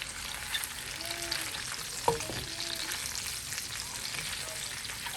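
Food frying in oil in a pan, a steady crackling sizzle. A sharp knock comes about two seconds in, and short scraping squeaks sound a few times.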